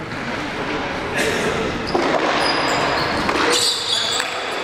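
Basketball game play on a hardwood gym floor: the ball bouncing, with short high squeaks of sneakers on the floor in the second half, all echoing in the hall.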